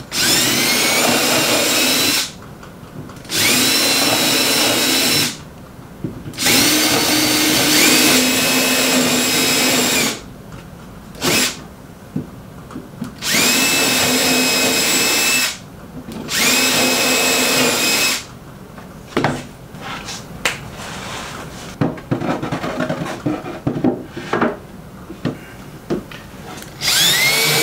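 Cordless drill boring 3/16-inch shelf-pin holes into plywood through a drilled guide board. It runs in about six bursts of two to four seconds, each starting with a rising whine. After about 18 seconds it gives way to quieter clicks and knocks, with one more rising whine near the end.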